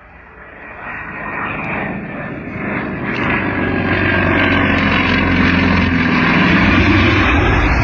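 Airplane engine noise growing steadily louder as the aircraft draws closer.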